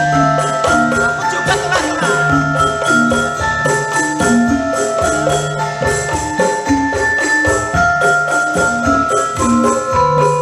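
Instrumental background music with a steady beat: a melody of held notes over a repeating bass line.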